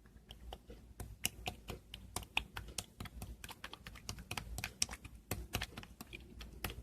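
Two-layer slime being played with, giving off a run of small sharp clicks and pops at an irregular pace, several a second.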